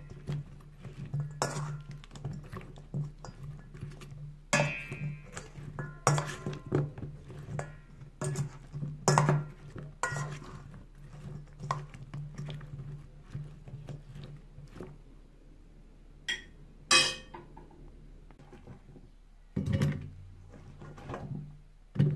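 Metal spoon clinking and scraping against a metal mixing bowl as sliced potatoes and onions are tossed: a string of irregular clinks and knocks that thin out after about fifteen seconds.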